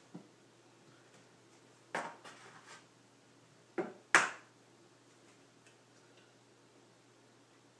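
Eggs being tapped against the rim of a mixing bowl to crack them: one knock with a short rattle about two seconds in, then two sharp taps close together about four seconds in, the second the loudest.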